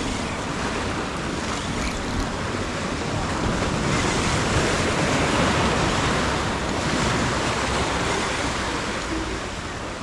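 Ocean surf washing on the shore, a steady hiss of water that swells as a wave comes in about midway and then eases off.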